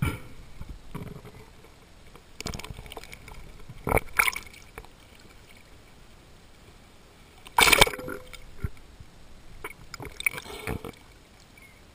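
Water splashing and gurgling around a diving-mask camera as the spearfisher moves between underwater and the surface, in about five short loud bursts: the loudest comes a little past halfway, with quieter sloshing between.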